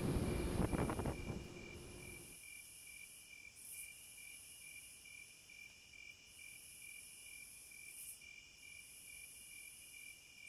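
A running boat's broad rumbling noise fades out over the first two seconds, leaving a faint, steady high-pitched chirring of insects that pulses a few times a second.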